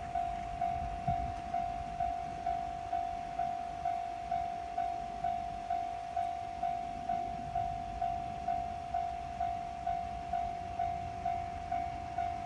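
Japanese railway level-crossing warning alarm ringing its electronic 'kan-kan' bell tone at an even pace of about two strikes a second, signalling that a train is approaching and the crossing is closed. A faint low rumble sits underneath.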